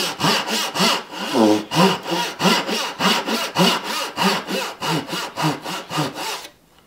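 Japanese pull-stroke backsaw ripping down into the end of a board, quick even rasping strokes as it cuts the pins of a dovetail joint; the sawing stops near the end.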